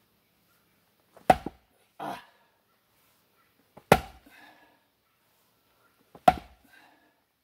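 Three heavy blows of a splitting maul on a checked sycamore round, about two and a half seconds apart, each a sharp whack with a short ring after it. The maul bites without sticking and the round doesn't split.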